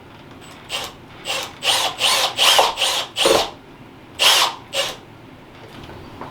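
Power drill run in a quick series of about nine short bursts over some four seconds, driving screws while a door lock is fitted.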